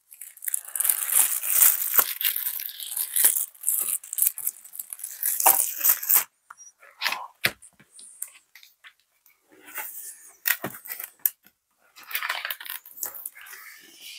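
Clear plastic packaging sleeves crinkling and rustling as items are handled and lifted out of a cardboard box. The rustling is dense for about the first six seconds, then breaks into scattered short crinkles and light taps, with another burst of rustling near the end.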